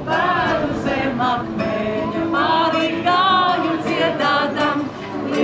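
Voices singing a song, with an acoustic guitar accompanying; the held notes waver with vibrato.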